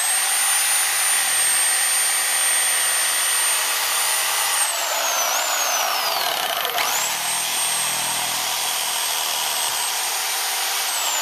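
Corded reciprocating saw running with its blade plunged into the soil, cutting the roots around a bush stump. Its steady high motor whine winds down about five seconds in as the trigger is released, then starts up again a second and a half later and runs on.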